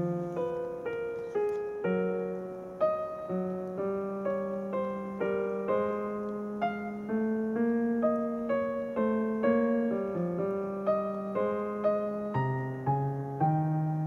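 Background piano music: a slow, gentle melody of single struck notes, about two a second, over sustained lower notes.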